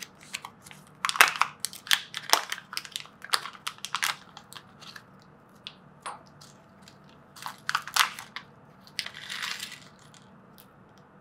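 Small motor-kit parts and their packaging being handled on a bench: a scattered series of sharp clicks and light rattles, with a short crinkle of packaging about nine seconds in.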